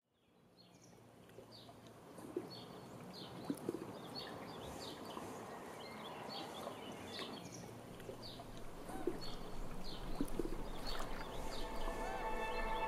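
Small birds chirping, short falling calls repeated about once a second over a soft outdoor ambience that fades in from silence. Near the end a music track with held notes comes in.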